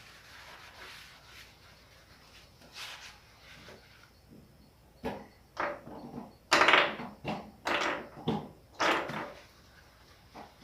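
Scrubbing on a cooktop: faint rubbing at first, then from about halfway in a run of about six short, rough scrubbing strokes.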